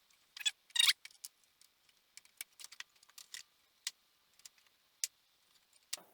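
Plastic trim pieces being handled and pushed into place: a short scrape less than a second in, then scattered light clicks and taps.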